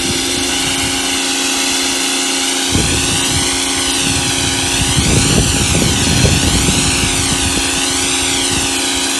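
Electric pressure washer running: steady motor hum under the hiss of the high-pressure spray with the soap bottle attached. The hiss wavers as the spray moves, and the splatter on the surface grows louder about three seconds in and again from about five to six and a half seconds.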